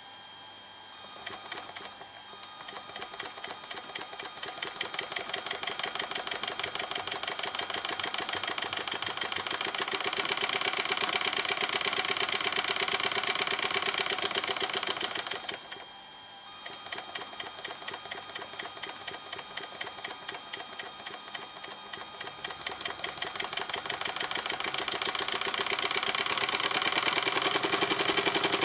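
Electric-powered 1/10th-scale Markie model engine running, its belt-driven mechanism making a fast, even mechanical clatter. The clatter grows louder, stops for about a second around the middle, then starts up again and builds back up.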